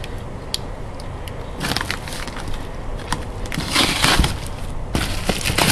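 A cardboard box being opened by hand: flaps pulled back and packing paper rustled and crinkled. The scraping and crinkling comes in bursts, loudest about a second and a half in and again around four seconds in, with a few sharp clicks between.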